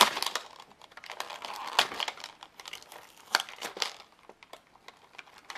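Small toy packaging being torn open by hand: irregular crinkling and sharp crackles, with a few louder snaps, about two seconds in and again a little past the middle.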